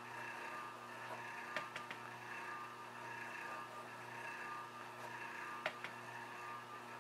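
Faint steady electrical hum of room background, with a few light taps: a pair about one and a half seconds in and one more near the end.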